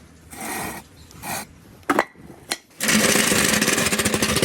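Marble-run building blocks being handled: a few light knocks and clacks, then about three seconds in a dense, loud rattling clatter of hard pieces lasting about two seconds.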